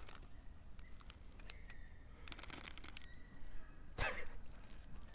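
Plastic snack packet crinkling as it is handled while someone eats from it: short rustling bursts a little after two seconds in and again about four seconds in, with scattered small clicks between them.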